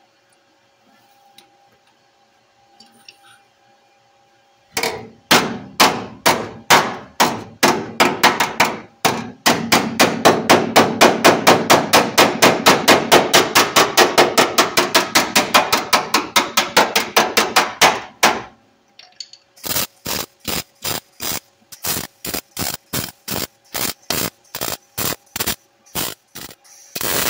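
A hammer tapping steadily on a sheet-steel floor patch panel, about four strikes a second for some thirteen seconds, working the patch to fit. After a short pause comes a string of short MIG welding bursts, about two a second, stitching the patch in.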